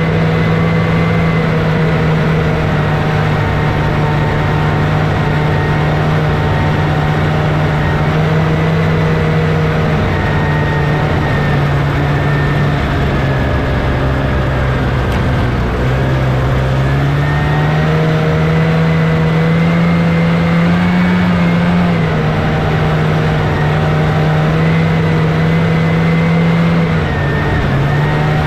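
1979 Scorpion Whip snowmobile's Cuyuna 440 two-stroke engine running steadily under way along the trail. Its pitch eases off for several seconds in the middle, then climbs back up and holds, with a brief dip and rise again near the end.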